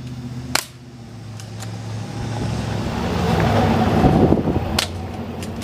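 Double Eagle P169 spring airsoft pistol being fired at targets: sharp single clicks about half a second in and again near the end. In between, a rising rush of wind and handling noise on the microphone as the camera is carried at a run.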